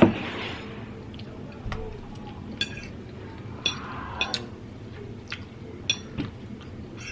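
Cutlery clinking against a plate or dish while eating: a sharp knock at the start, then about seven lighter clinks spread through.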